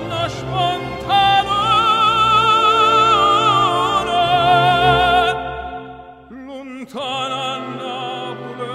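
Operatic singing with instrumental accompaniment: a voice with wide vibrato holds a long high note, falls away about five seconds in, and a new phrase begins about a second later.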